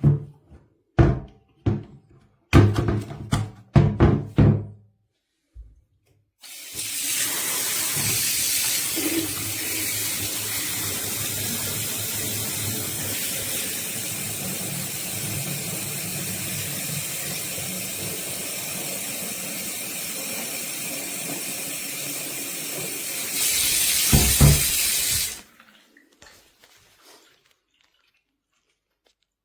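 Water running steadily from a tap for about twenty seconds, a little louder just before it stops, preceded by a few short knocks.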